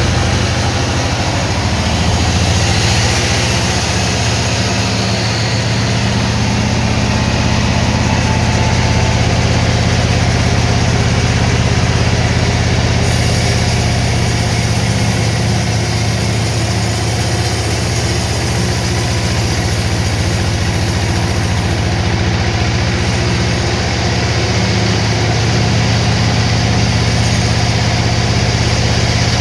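Engine of sawmill machinery running steadily at an even speed, a low hum with a dense mechanical noise over it.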